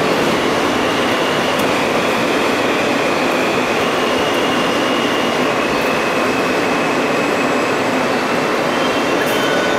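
R160 subway car running at speed, heard from inside the car: a steady, loud rumble of wheels on rail, with a faint thin high whine above it.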